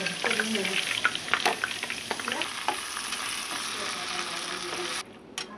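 Food frying in hot oil in a pan: a steady sizzle full of small crackles and pops, with utensil clicks against the pan. The sizzle cuts off suddenly about five seconds in, and a couple of sharp clicks follow.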